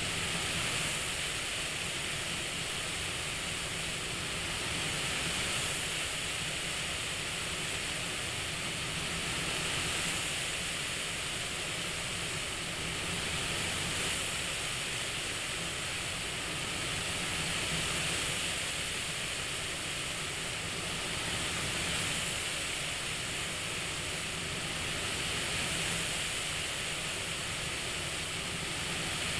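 CPAP-style airflow hiss, steady and even, swelling and easing gently about every four seconds like slow breathing.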